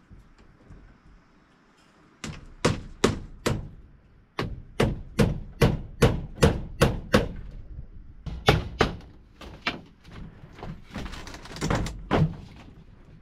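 Runs of sharp knocks, about three a second, starting about two seconds in, with short pauses between the runs; a rougher, noisier stretch of knocking follows near the end.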